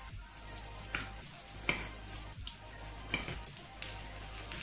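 Gram-flour and pea fritters sizzling in oil in a cast-iron appe pan. A metal spoon clicks and scrapes against the pan several times as the fritters are turned over.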